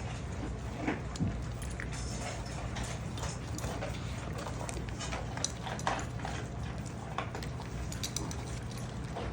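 Six-week-old puppies eating and moving about: many small scattered clicks and crunches over a steady low hum.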